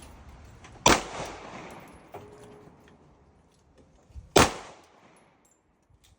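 Two gunshots about three and a half seconds apart, each followed by a short reverberating tail. Between them comes a faint metallic clink with a brief ring.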